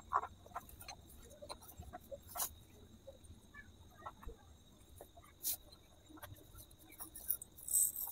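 Small terracotta pots and lids clicking and knocking lightly as they are handled, opened and set down on a concrete floor. A faint steady high tone runs behind, and a brief high-pitched chirping burst comes near the end.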